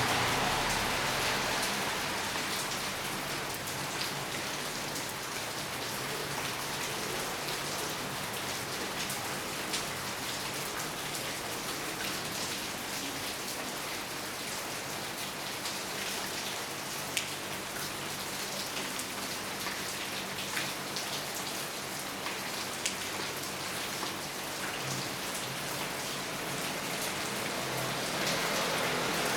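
Steady rain falling, with scattered individual drops ticking sharply over the hiss.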